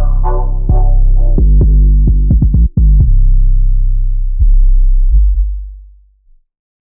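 Closing bars of a trap-style beat: drum-machine hits over a heavy 808 bass and synth chords. The beat stops a little after five seconds in and the last bass note fades out.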